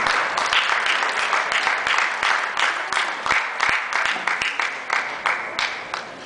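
Audience applauding, a dense patter of hand claps that dies away near the end.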